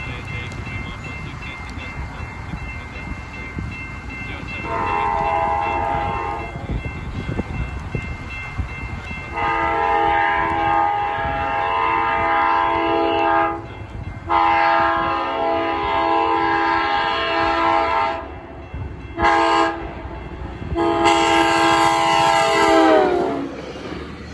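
Trinity Railway Express commuter train sounding its multi-chime horn for a grade crossing: a first blast, then the long, long, short, long crossing signal. The pitch of the final long blast drops as the train speeds past.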